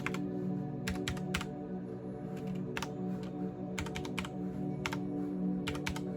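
Typing on a CM Storm XT mechanical keyboard: sharp key clicks in short irregular bursts of two to four, a brief pause between bursts. Quiet background music plays underneath.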